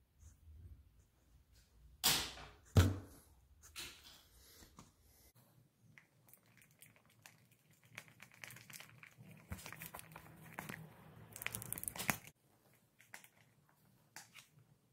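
A thin clear plastic cup crinkling and scraping as two-part epoxy is stirred in it with a wooden stick, with a couple of sharp crackling knocks about two seconds in.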